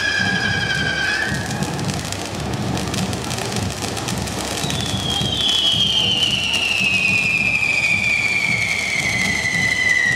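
Firework fountains hissing and crackling, with a whistling firework whose note glides slowly downward. One whistle fades out about a second in, and a higher one starts near the middle and falls steadily in pitch.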